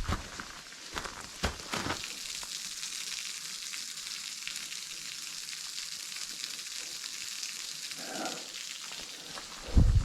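Thin waterfall splashing into a small pool: a steady, high-pitched hiss of light flow. A few sharp clicks in the first two seconds, and a loud low thump near the end.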